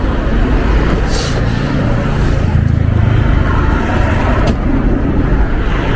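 Steady low rumble of motor-vehicle noise, with a short sharp click about a second in and another past four seconds.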